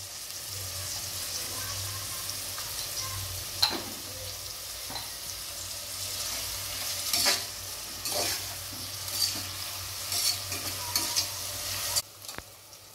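Sliced onions sizzling in hot oil and ghee in an aluminium pressure-cooker pot, frying toward brown. A perforated steel spatula scrapes and stirs against the pot several times. The sizzle drops away sharply about a second before the end.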